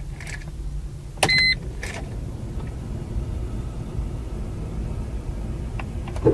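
Ignition switched on in a 2010 Mercedes-Benz A180 (W169) before the engine is started: the instrument cluster gives one short electronic chime about a second in, followed by a few sharp clicks, over a low steady hum.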